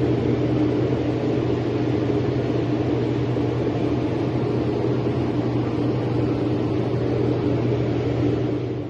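Steady rumble of a vehicle in motion, heard from inside, with a constant low drone. It cuts off suddenly at the very end.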